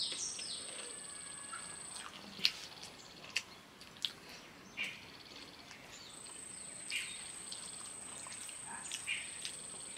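A cricket's steady high-pitched trill that stops about two seconds in and starts again about six seconds in, under scattered sharp clicks and smacks of eating with the hands.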